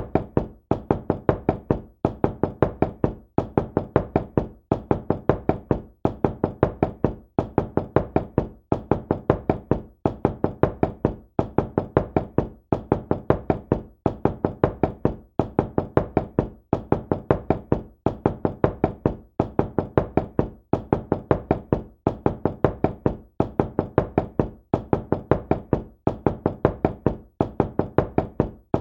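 Knocking on a door in quick clusters of several knocks, with a short pause between clusters about every second and a half, repeating evenly.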